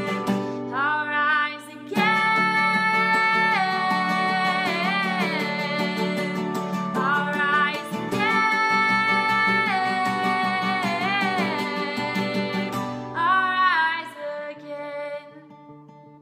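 Woman singing long held notes over a strummed acoustic guitar. The voice stops about fourteen seconds in, and the guitar goes on more softly with a few ringing notes.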